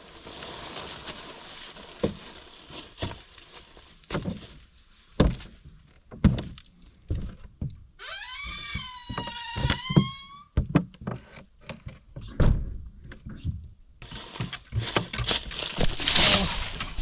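Wooden cabin door being worked open and shut: a string of separate knocks and thuds, with a long, wavering squeak about eight seconds in.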